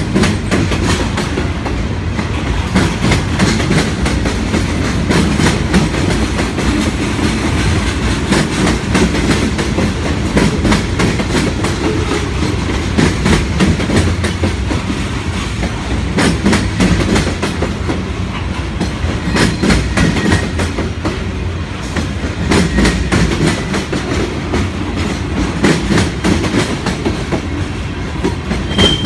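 Freight train of tank cars and covered hopper cars rolling past close by: a steady low rumble of wheels on rail, with a running stream of clicks and clacks as the wheels cross rail joints.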